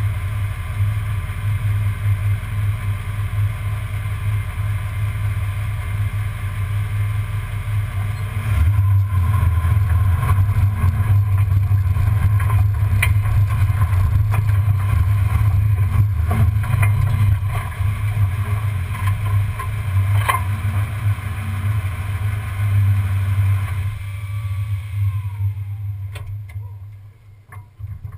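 1994 Ford Bronco engine running steadily, heard from under the chassis while the truck drives off-road over sand, with scattered clicks and knocks. The engine grows louder about eight seconds in, and a falling whine comes just before it eases off near the end.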